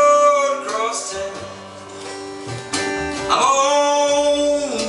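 Country song played by a band: guitar under two long held sung notes, one at the start and one in the second half.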